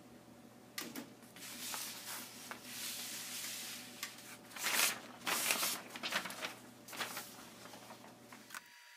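Sheets of paper rustling and crinkling as they are handled and laid down over a freshly formed sheet of handmade pulp paper, in a string of irregular bursts that are loudest around the middle.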